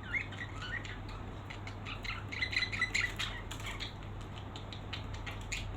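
Birds chirping in short calls, busiest about two to three seconds in, with scattered light clicks and a steady low hum underneath.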